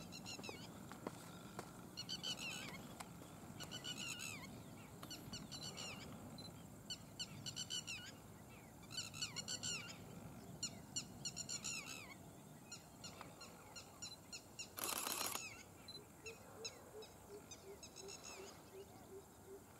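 Birds singing outdoors: a songbird repeats short, high, twittering phrases every second or two. A brief loud rush of noise comes about 15 seconds in, and near the end a quick, even series of low hooting notes, about four a second.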